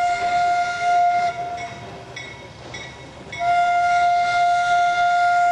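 Diesel locomotive air horn sounding long blasts: one holds on and stops about a second and a half in, and another starts about three and a half seconds in and holds on.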